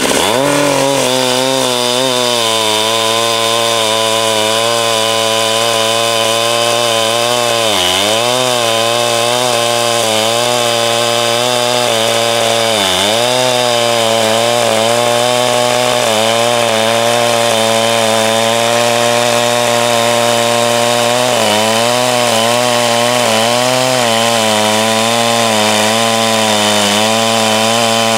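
Holzfforma G372XT 71cc two-stroke chainsaw, a clone of the Husqvarna 372 X-Torq, cutting through a log at full throttle. It revs up as the cut begins, then holds a steady high note that sags briefly twice as the chain bites, about a third and halfway through, and wavers near the end.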